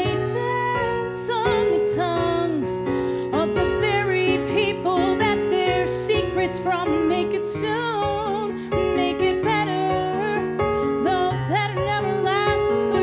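A woman singing a musical-theatre ballad over a recorded piano accompaniment track.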